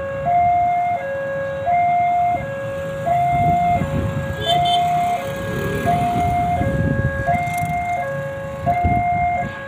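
Railway level-crossing warning alarm sounding its two-tone electronic signal, a high and a low note alternating about every three-quarters of a second, which warns that a train is approaching. Low motorbike engine rumble runs underneath.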